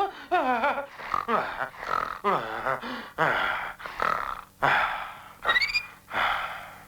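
A cartoon character's wordless voice: wavering, sliding vocal sounds give way to a run of short, breathy grunts, about one a second, with a quick rising squeak among them.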